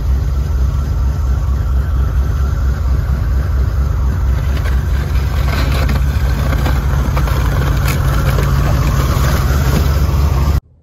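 A snow pusher shovel scraping and pushing snow along the ground, the scraping growing louder from about four seconds in, over a loud, steady low rumble that cuts off suddenly near the end.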